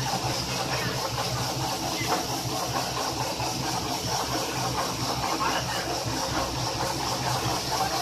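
Carrot roller washing machine running steadily: a constant motor hum under the hiss of water spraying from the nozzles onto the carrots.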